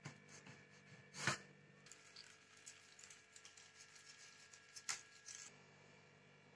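Near silence with two faint, short knocks and a few soft clicks from knife and zucchini slices being handled on a wooden cutting board and laid into a plastic container.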